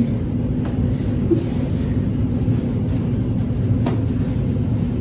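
Steady low rumbling hum with two faint brief rustles, about a second apart from the start and near the end.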